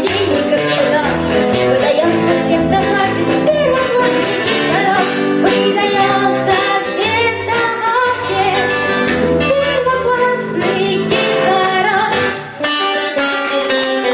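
A young girl singing a song into a microphone, accompanied by acoustic guitar.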